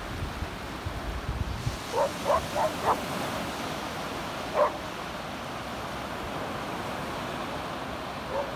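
Steady wash of small waves breaking on a sandy beach, with wind rumbling on the microphone for the first couple of seconds. A dog barks four times in quick succession about two seconds in, once more a couple of seconds later, and faintly near the end.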